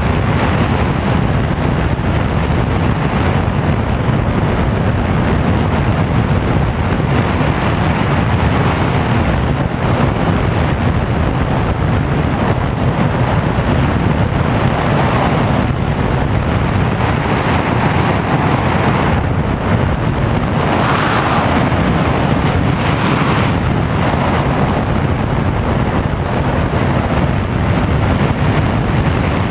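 Steady rushing of airflow over the onboard camera's microphone on a Sky Surfer RC glider gliding with no engine tone, swelling briefly a few times in the second half.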